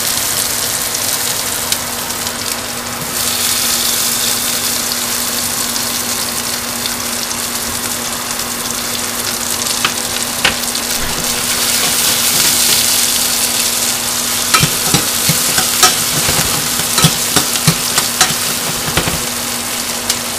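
Sliced onions sizzling steadily as they fry in hot ghee in a stainless steel saucepan. In the last third, a run of sharp clicks and knocks against the pan from stirring.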